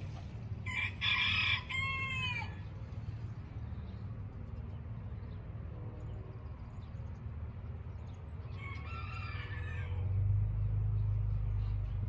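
A rooster crowing twice: a loud crow about half a second in that falls in pitch at its end, and a fainter one about three quarters of the way through. A steady low rumble runs underneath and grows louder near the end.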